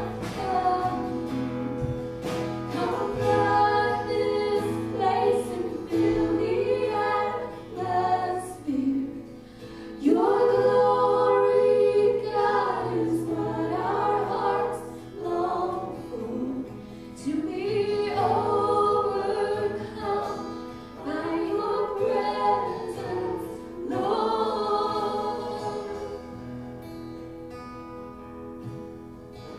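Live worship band: voices singing long phrases over keyboard and acoustic guitar. It grows quieter over the last few seconds.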